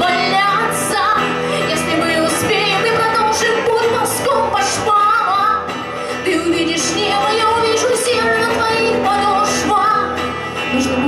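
A woman singing a song live, accompanied by an electric guitar.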